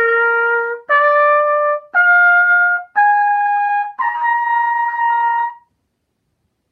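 Trumpet played with no valves pressed, stepping up the open harmonic series in five separately started notes, about one a second, to a high C that is held longer and stops about five and a half seconds in.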